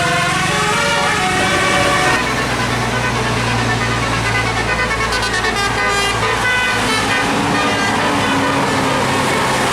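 Bus telolet horn playing a quick tune of stepped notes that stops about two seconds in, followed by a steady low drone with fainter notes over it and a new held tone near the end.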